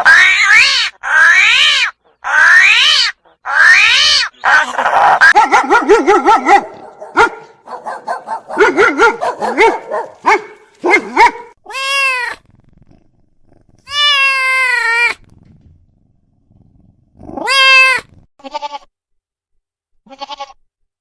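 A string of loud animal calls and cries, several overlapping in the first half, then a few separate long calls with a shaky, wavering pitch.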